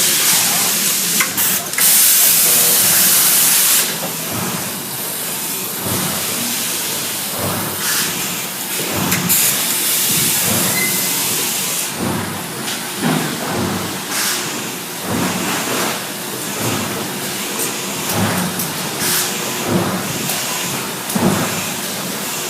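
Factory production machinery running, with two loud hissing blasts, one about two seconds in lasting some two seconds and a longer one from about nine to twelve seconds, over repeated clanks and knocks.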